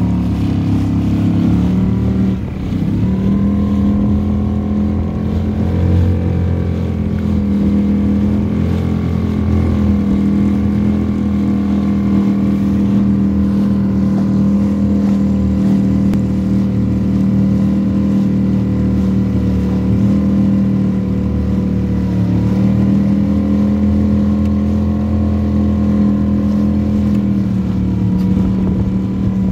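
Outboard motor of a small open boat running steadily under way. Its pitch dips briefly about two seconds in, then holds with small rises and falls.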